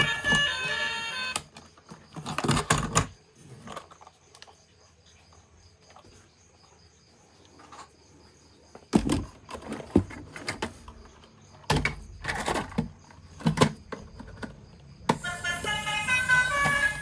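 A short electronic tune cuts off early on, followed by a quiet stretch of scattered clicks and knocks, like plastic toys or packaging being handled. The tune starts again about two seconds before the end.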